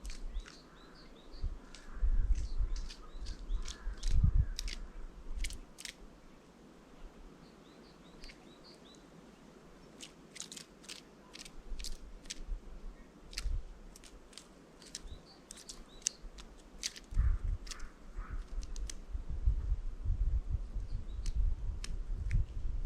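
Small birds at a bird feeder: many short, sharp high clicks and chirps, with low thuds in between.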